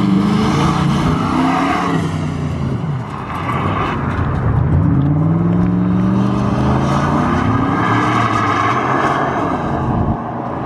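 Turbocharged classic Ford F-series pickup driving an autocross run, its engine revving up and dropping back several times as it accelerates and slows for the turns.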